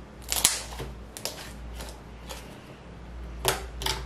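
Homemade glue slime, just activated with boric acid water and baking soda, being kneaded and squeezed by hand and pressed onto a tabletop, giving irregular short sticky clicks and pops.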